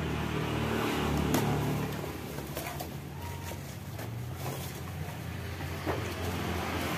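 A steady, low engine rumble of a motor vehicle, with a few light clicks over it.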